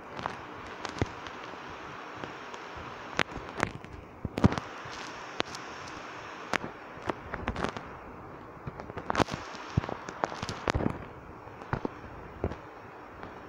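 Irregular sharp cracks and pops, many of them scattered unevenly, over a steady hiss. The loudest cluster comes about four and a half seconds in, and another bunch of pops comes around nine to eleven seconds.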